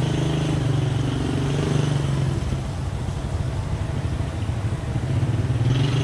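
Steady low motor drone that goes on without a break, a little weaker in the middle and stronger again near the end.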